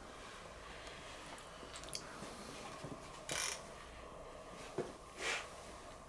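Hand handling of connecting-rod caps and bolts on a bare engine short block: two short scraping rustles and a light metallic click, over a faint steady background.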